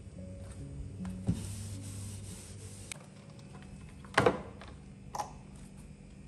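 Small household objects being handled and set down on a cabinet top: a light click, some rubbing, then a louder knock about four seconds in as a small stainless-steel electric coffee grinder is put down, and a softer knock a second later.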